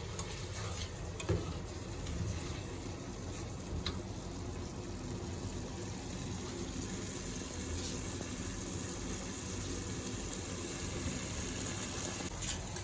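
Chicken pieces simmering in a butter-garlic gravy in a pan: a steady bubbling sizzle with an occasional faint tick.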